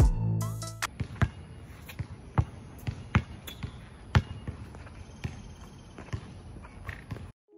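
Basketball bouncing on a hard outdoor court as it is dribbled: sharp thumps at uneven intervals, about one or two a second, over a faint steady high tone. Background music cuts off just under a second in, and all sound stops abruptly near the end.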